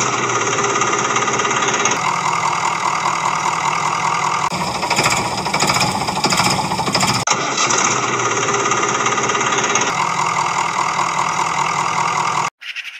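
Engine sound running with a rapid, even knocking chug, loud and steady, changing abruptly every two to three seconds as if spliced from separate pieces, and cutting off suddenly near the end.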